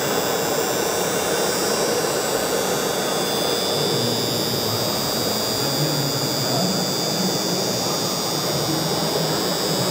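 Small electric motor and gearbox of a radio-controlled model vehicle running with a steady, constant high whine over an even rushing noise.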